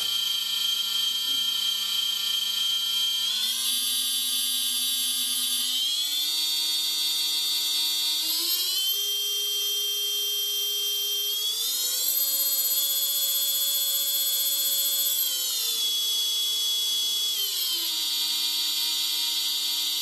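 Brushless quad motor spinning on the bench with a high whine, run up through different RPMs to check it for vibration. The whine steps up in pitch four times over roughly the first twelve seconds, holds, then steps back down near the end.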